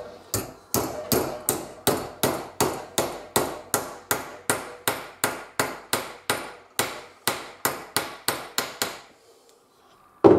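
A hand hammer strikes a metal strip clamped in a bench vise, bending it over in a steady run of sharp metallic blows, about two and a half to three a second. The blows stop about nine seconds in, and there is a single louder knock at the very end.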